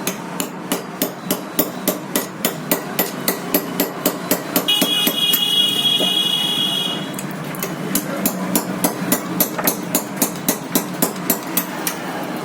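Rapid, regular hammer blows, about three a second, from cutting the burnt copper winding off a ceiling fan's stator. They pause for a couple of seconds a little before the middle, while a steady high-pitched tone sounds, then carry on.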